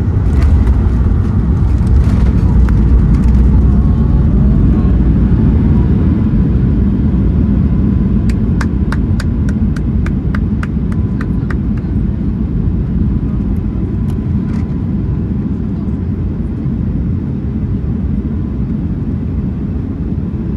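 Boeing 737 MAX airliner cabin noise: a loud low rumble of the engines and airflow that slowly eases over the stretch. In the middle comes a short run of sharp clicks, about four a second.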